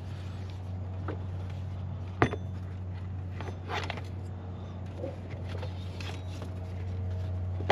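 Serpentine belt being pulled off its pulleys by hand in a Nissan VQ40DE engine bay with the engine off: a sharp clack about two seconds in and a few scraping, rustling handling noises, over a steady low hum.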